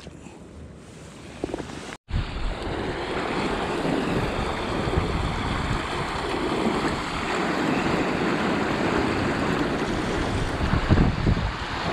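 Steady rush of river water mixed with wind buffeting the microphone. The sound drops out for a moment about two seconds in and comes back louder, with gusty surges near the end.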